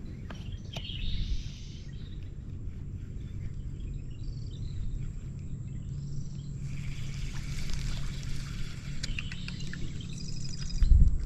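Outdoor ambience on open water, with faint bird and insect calls over a steady low hum, and a loud knock just before the end.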